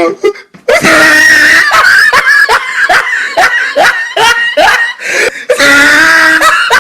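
Loud, high-pitched human laughter in rapid repeated bursts, starting after a brief pause about half a second in.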